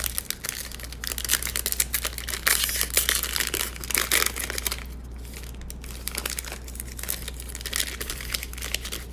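Trading card pack wrapper being torn open and crinkled by hand, a dense crackling that eases off for a couple of seconds just past the middle and picks up again near the end, over a low steady hum.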